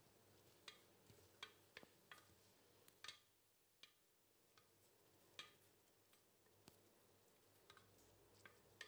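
Faint, irregular taps and scrapes of a wooden spoon stirring chopped onions and tomatoes in an aluminium pressure cooker, about ten light knocks spread unevenly over the stretch.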